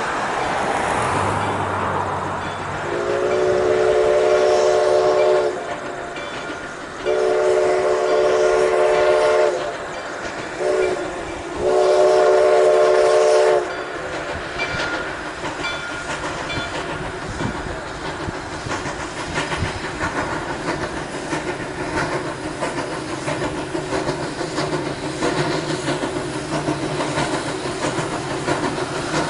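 Ex-CPR 4-4-0 steam locomotive No. 136's steam whistle blowing several tones together in the pattern long, long, short, long: the grade-crossing signal. The train then draws closer, clattering over the rails.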